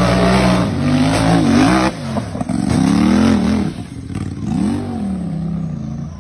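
Tube-frame off-road buggy's engine revving hard under load on a steep dirt hill climb, its pitch rising and falling again and again as the driver works the throttle.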